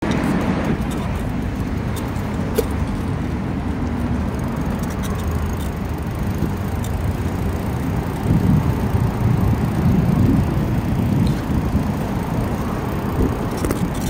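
Wind buffeting the microphone and road noise from a moving bicycle, with car traffic passing on the street; it swells for a couple of seconds past the middle.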